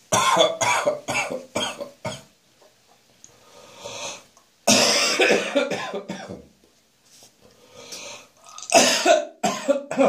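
A person coughing hard in fits: a quick run of about five coughs, then one long, rough cough a few seconds later, then another run of coughs near the end. It is a morning cough after a night of heavy beer drinking.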